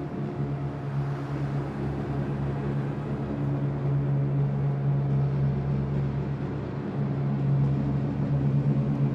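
A low, steady droning hum that slowly swells in loudness.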